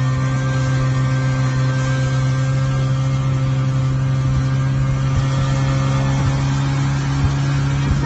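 Snowmobile engine running at a steady speed under way, a constant droning hum that holds one even pitch.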